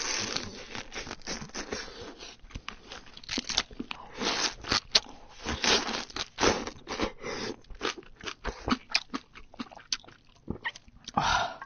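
Close-miked eating of cooked crab: the shell cracking and crunching in quick, irregular crackles, with sucking and chewing as the meat is pulled out.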